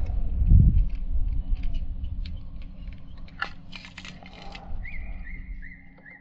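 Wind buffeting the microphone as a low rumble, with scattered clicks of handling. Near the end a bird calls a quick run of short, rising chirps before the sound fades out.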